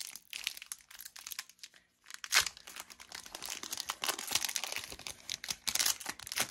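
Foil wrapper of a Pokémon trading-card booster pack crinkling and tearing as it is opened by hand, with one sharp crackle, the loudest moment, about two and a half seconds in.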